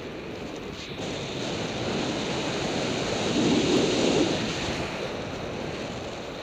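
Wind rushing over the microphone of a camera carried aloft by a hang glider in flight: a steady airflow noise that swells about halfway through and then eases.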